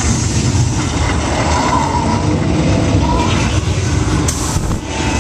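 Steady, loud rumble of a dark ride's robotic-arm ride vehicle moving along its track, with a short hiss about four seconds in.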